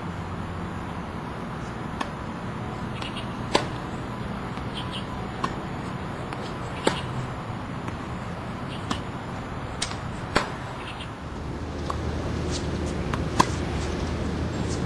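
Tennis ball being struck by rackets and bouncing on the court, a string of sharp pops about every one to two seconds over a steady background hum.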